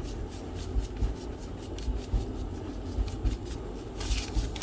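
All-purpose seasoning being shaken from a shaker bottle over raw oxtail: a quick, even run of short shakes, growing into a hissier sprinkle near the end.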